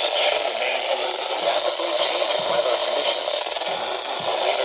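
Weather radio receiver putting out steady static hiss on a weak signal.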